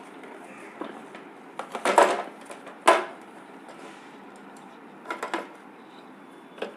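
Parts of a dismantled mixer grinder being handled: a few separate knocks and clatters, the loudest about two and three seconds in.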